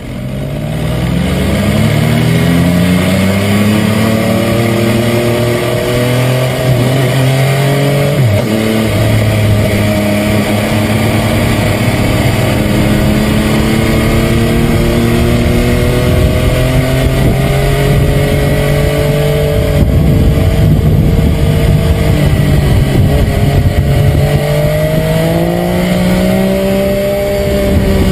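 MV Agusta F3's three-cylinder engine running hard through its exhaust. Its note climbs over the first few seconds and dips briefly about eight seconds in. It then rises slowly, climbs more quickly near the end and falls away.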